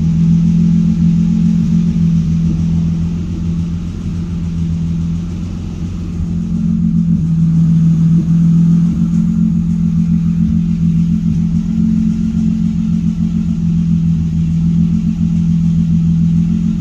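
Honda J-series V6 engine idling steadily at about 800 rpm, a constant low hum and rumble. It is running on its welded and epoxied cracked aluminum block, which is holding without leaking.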